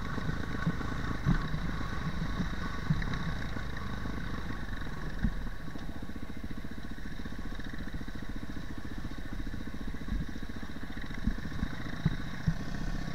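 Dirt bike engine running at a steady pace on a rough trail, with a few sharp knocks scattered through.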